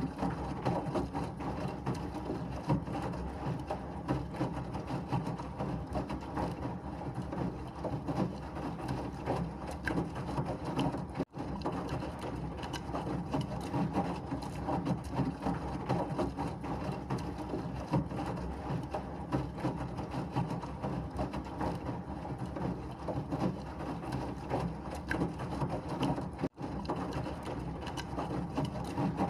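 Washing machine running, a steady churning mechanical hum with a fine rattle, broken by two very short gaps about a third of the way in and near the end.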